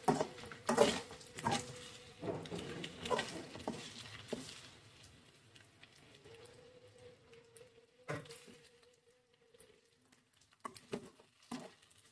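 Metal spatula scraping and clinking against a metal kadai as parboiled chicken pieces and onions are stirred and fried. The stirring is busiest in the first few seconds, then thins out to occasional scrapes, with a single sharp knock about eight seconds in.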